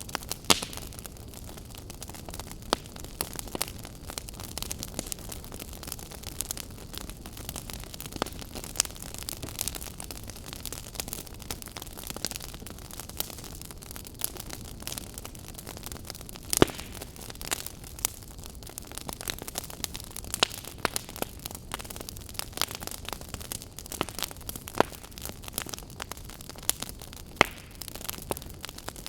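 Wood campfire crackling: a steady low hiss with irregular sharp pops and snaps throughout, the loudest about half a second in and about seventeen seconds in.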